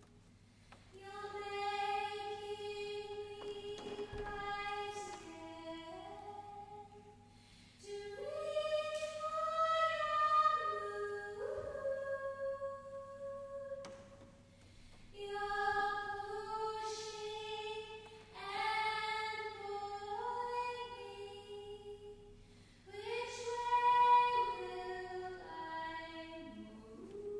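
Mixed a cappella vocal ensemble singing sustained chords in four phrases of several seconds each, with short breaths between them; the voices step downward at the end of each phrase, and the second and fourth phrases swell the loudest.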